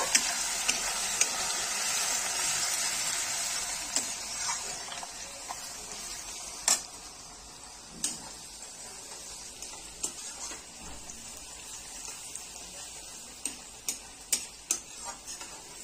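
Ground garlic paste frying in hot oil with whole spices. The sizzle is loudest at first and dies down over several seconds, and sharp clicks and scrapes of stirring against the pan come through it.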